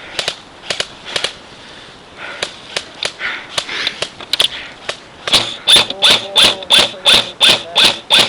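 Airsoft guns firing single shots: sharp snapping cracks, scattered at first, then a quicker, louder run of about three to four shots a second in the second half.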